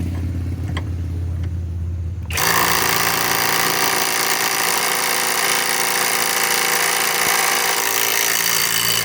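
Kobalt cordless right-angle impact wrench running in reverse, hammering steadily for about seven seconds on a 1.5-inch nut as it tries to break it loose. It starts a couple of seconds in over a steady low hum and stops abruptly near the end.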